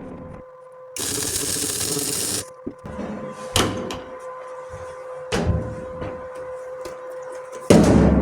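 A MIG welder laying a short bead on the aluminium fuel tank, a hissing burst of about a second and a half. Then come several sharp metal knocks and a heavy thump near the end.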